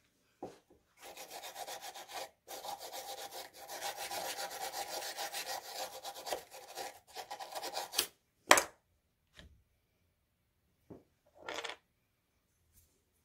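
Fast back-and-forth scrubbing by hand for about seven seconds, an old, likely original engine valve head being cleaned off to look for a part number. Then one sharp knock, the loudest sound, and a few light taps and a short scrape.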